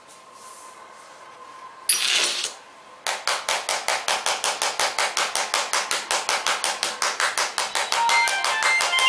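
Metal screwdriver tip scraped rapidly back and forth across the Gorilla Glass 3 screen of a Sony Xperia E4, about six strokes a second from about three seconds in, with short squeaks near the end. A single brief scrape comes about two seconds in.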